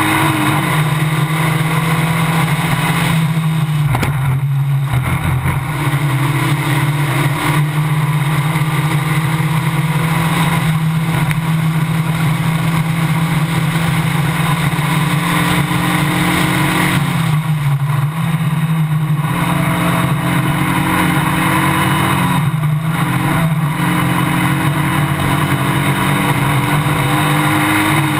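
Formula Basic single-seater race car's engine running hard at a steady high pitch, heard onboard with wind and road noise. The sound thins briefly three times: about four seconds in, past the middle, and again near the end.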